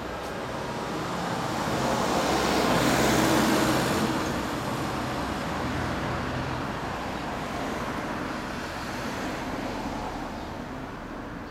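Road traffic: a motor vehicle passing on the road, its engine and tyre noise swelling to a peak about three seconds in and then slowly fading away.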